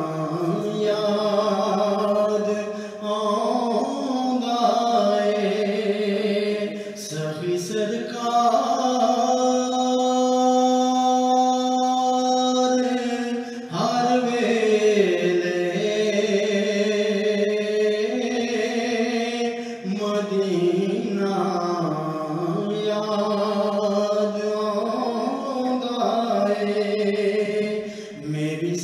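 A man singing a naat, a devotional song in praise of the Prophet Muhammad, solo in slow, ornamented phrases. He holds one long steady note from about nine to thirteen seconds in.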